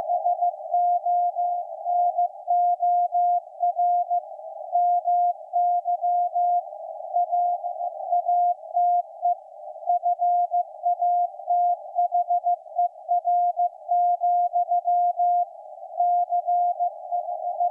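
Morse code (CW) from the maritime coast station KPH received on a shortwave receiver: a single steady tone keyed on and off in dots and dashes over a narrow band of receiver hiss.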